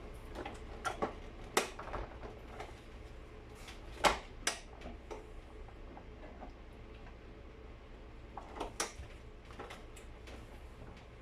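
Plastic housing parts of a vacuum cleaner clicking and knocking as they are handled and pried at, trying to free clip-together parts. The taps are scattered, with the loudest two knocks about four seconds in.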